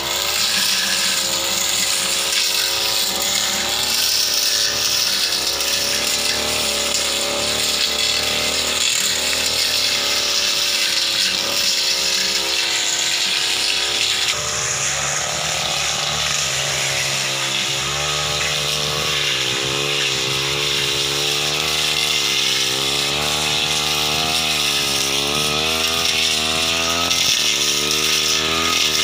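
Petrol backpack brush cutter running hard as it cuts through thick brush, its engine note steady at first, then rising and falling again and again in the second half as the blade bites into and clears the growth.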